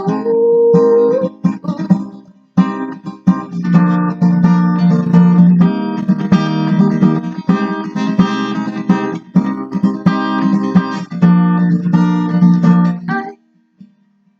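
Guitar strumming chords in a steady rhythm, stopping abruptly about a second before the end.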